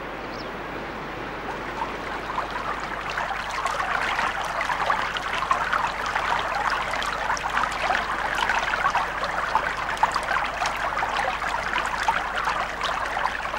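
River water running and rippling over rocks in the shallows, a steady babbling full of small splashes that grows a little louder after the first couple of seconds.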